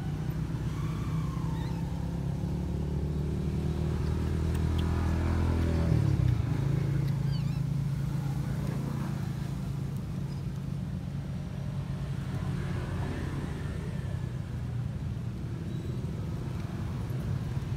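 An engine running with a steady low hum that shifts in pitch about six seconds in.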